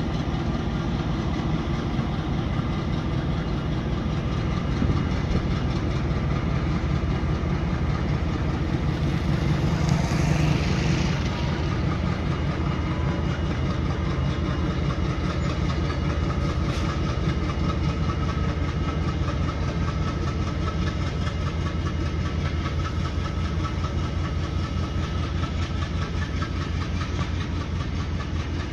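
ALCO diesel locomotive's engine working under load as it hauls a freight train, a steady deep pulsing rumble while it smokes heavily. A brief hiss swells and fades about ten seconds in.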